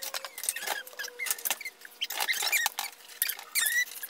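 Dishes and plastic cups clattering and clinking as they are handled in a dishwasher's racks, a quick run of small knocks with several short high squeaks among them.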